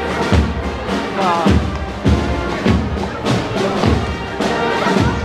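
Brass band playing a march, with a bass drum beat a little under twice a second, over crowd chatter.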